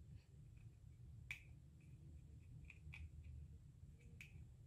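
Near silence: room tone with about four faint, sharp clicks, the clearest about a second in.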